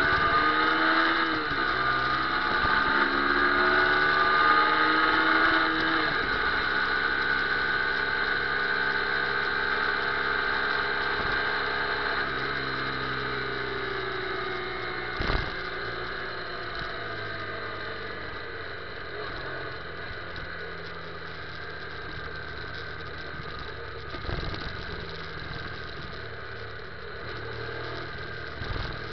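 Motorcycle engine heard from a camera mounted on the bike. It rises in pitch in steps over the first six seconds as it accelerates through the gears, then runs steadily and slowly drops in pitch and loudness as the bike slows. A single knock about halfway through.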